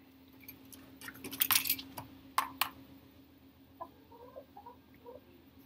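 Handling noise from a dressing on a hen's injured leg: a burst of rustling and a few sharp clicks, loudest about a second and a half in. After that come a few faint, short, soft calls from the hen.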